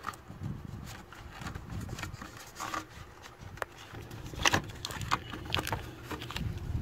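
Scattered light clicks and knocks of hands handling parts in an engine bay, over low handling rustle.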